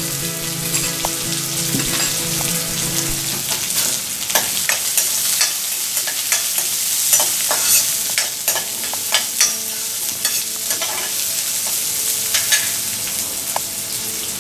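Chopped onions sizzling in hot oil in a kadai as they sauté. From about four seconds in, a steel spoon stirs them, scraping and clicking against the pan.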